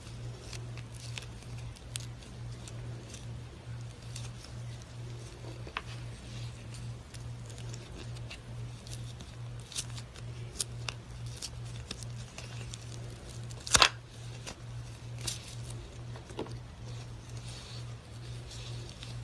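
Slime being handled: scattered small clicks and crackles, with one sharper crack about fourteen seconds in, over a steady low hum.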